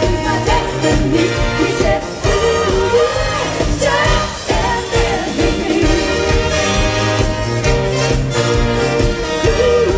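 Live band music with singing: a brass band playing a pop song, the horns and voices over a full rhythm section.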